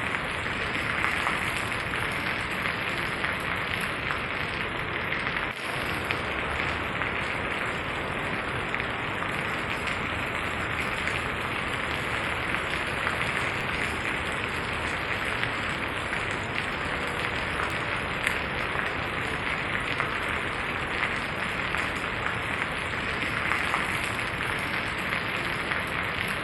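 Steady rain falling on the ground, a dense, even hiss of many small drop impacts with no let-up.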